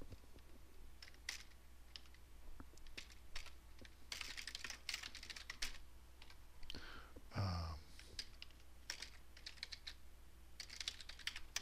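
Typing on a computer keyboard: faint, irregular key clicks coming in short bursts, with a short, low, falling hum about two-thirds of the way through.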